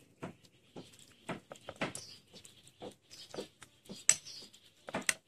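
Metal ladle knocking and scraping against a ceramic bowl while curry is served, a string of soft irregular clicks and taps, a little louder about four and five seconds in.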